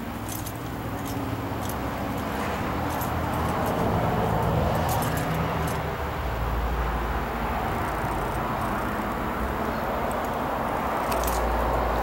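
Wind buffeting a handheld microphone outdoors: a steady rumble and hiss that swells in low gusts twice, with a few light clicks of handling noise.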